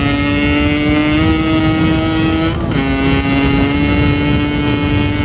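Yamaha RX King's 135cc single-cylinder two-stroke engine under way. Its note climbs steadily, dips briefly about halfway through, then climbs again.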